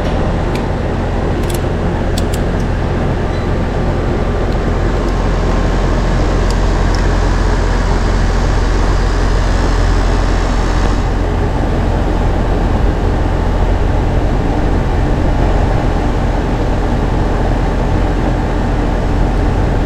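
Outdoor AC condenser unit running: the compressor and condenser fan motor produce a steady low hum with a rushing hiss, a few light clicks in the first seconds, and part of the hiss dropping away about halfway through. The compressor has started and runs normally on its new capacitor and hard start kit, drawing well within its rated running amps.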